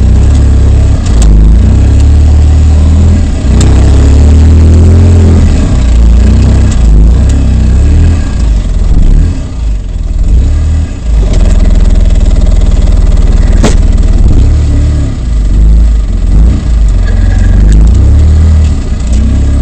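Polaris RZR side-by-side's engine running and revving up and down under load while rock crawling, heard from inside the open cab. A deep rumble runs throughout, with a few sharp knocks and rattles from the machine working over the rocks.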